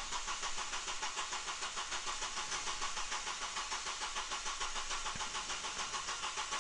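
Four-cylinder car engine being cranked over by its starter motor at about 200 RPM without firing, for a compression test. It has an even, rhythmic chug of about seven beats a second, the even beats matching the balanced compression of all four cylinders (95–100%).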